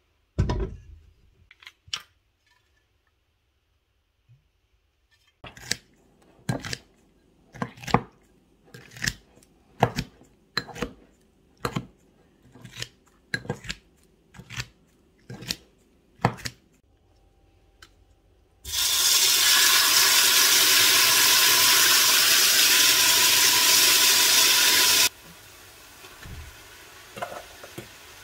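A string of sharp knocks and clatters, about two a second for some ten seconds, like kitchenware being handled. Then a loud rush of running water for about six seconds, which cuts off suddenly.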